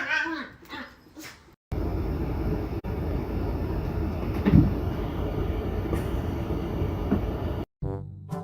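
A steady low rumbling noise, like a moving vehicle or train heard from inside, starting abruptly a second and a half in and cutting off abruptly near the end, with one brief louder swell in the middle.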